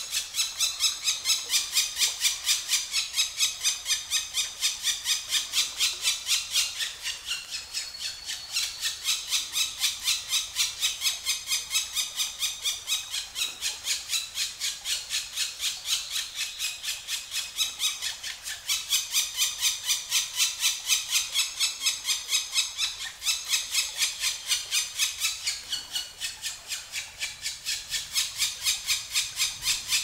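Black woodpecker nestlings begging from the nest hole: a continuous fast series of high, squealing calls, about four or five a second, easing briefly a few times.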